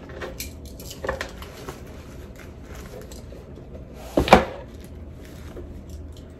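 Light rustling and soft clicks of a cotton dust bag and a cardboard box being handled, with one louder, short sound about four seconds in.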